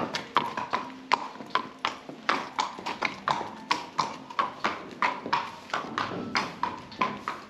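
A horse's hooves clip-clopping on a concrete stable aisle as it is led at a walk, a steady run of sharp knocks about three a second.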